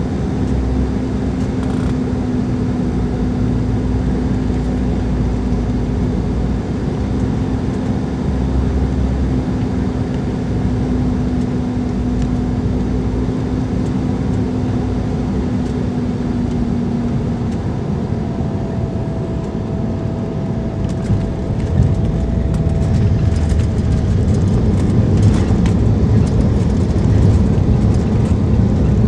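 Embraer 190 cabin noise by the wing over its GE CF34-10E engine on final approach: a steady hum with a held low tone that fades out about two-thirds of the way through. About 21 s in the aircraft touches down, and the noise turns into a louder rumble with rattles as it rolls out on the runway.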